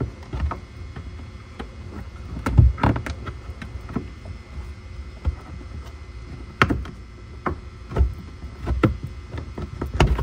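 Car trunk side lining, carpeted panel and plastic trim, being pulled back and wiggled by hand: irregular knocks, clicks and rustles of the trim flexing and bumping, over a steady low rumble.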